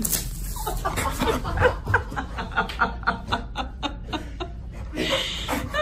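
People laughing under their breath, snickering and chuckling in short, quick pulses.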